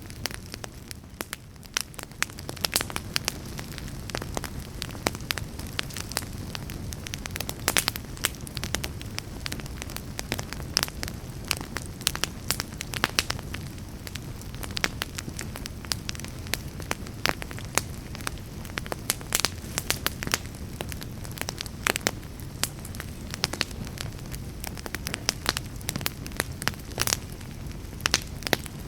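Fire in a fireplace crackling and popping in irregular sharp snaps, over a steady low rumble from the flames.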